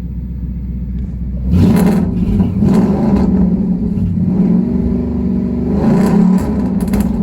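2012 Mustang GT's 5.0-litre V8 idling, then revved several times in quick blips from about a second and a half in, the engine note rising and dropping back with each blip.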